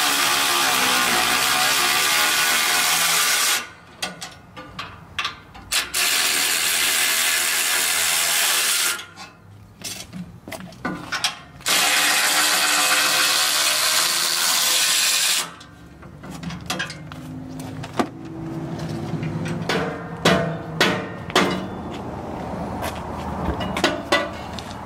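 Cordless electric ratchet spinning nuts off the front crossbar in three runs of a few seconds each, with clicks between runs. In the quieter stretch near the end come a few sharp knocks as the bar is tapped loose with a rubber mallet.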